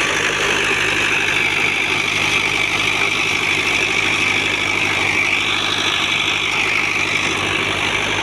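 Sugarcane crusher (kolhu) running steadily on its engine as cane is crushed, a constant mechanical hum with a higher whine that rises briefly about halfway through.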